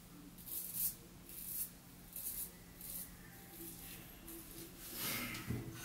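Stainless steel double open comb safety razor (PAA Doc) scraping through stubble under shaving lather: about seven short, faint scratchy strokes a little under a second apart.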